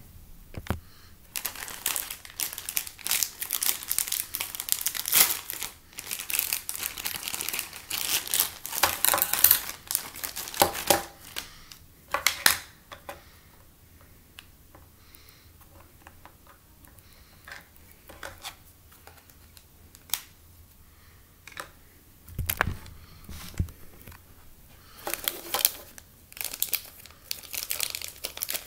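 Thin plastic bag of a McDonald's toy being crinkled and torn open, in bursts of crackling with a quieter stretch in the middle. A low thump comes about two-thirds of the way through.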